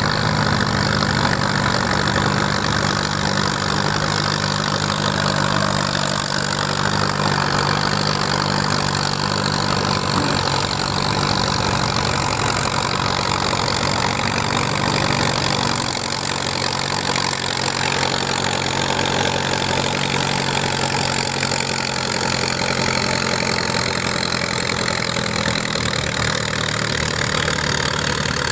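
Antique farm tractor engine running steadily under load as it pulls a weight-transfer sled, its note easing slightly about halfway through.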